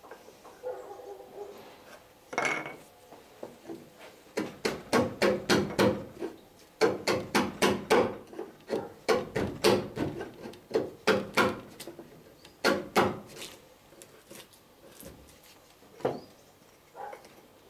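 Chisel paring wood from the rebate in the wooden stem of a clinker dinghy, deepening it so the plank end will sit flat: a few single cuts at first, then runs of short, quick strokes several a second from about four seconds in to about thirteen seconds in, then a couple of single cuts.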